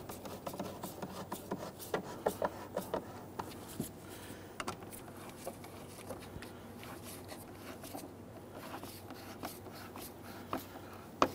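Flathead screwdriver turning the screw of a worm-gear hose clamp on a rubber air intake tube: a run of light clicks and scrapes, most of them in the first few seconds, with a sharper click near the end.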